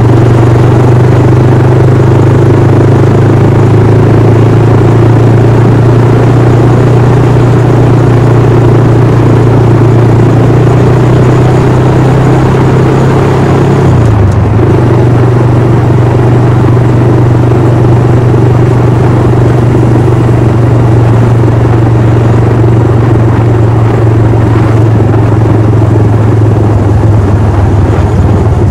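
Honda Monkey 125's air-cooled single-cylinder four-stroke engine running at a steady cruising speed while riding. Its pitch dips briefly about halfway through and then recovers.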